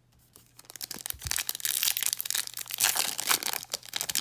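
Crinkling and crackling of a trading-card pack wrapper being handled, a dense run of small rustles and clicks that starts faintly and gets louder about a second in.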